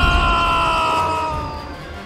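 Cartoon explosion sound effect dying away: a low rumble fades within the first second while a long tone slides slowly downward and fades out near the end.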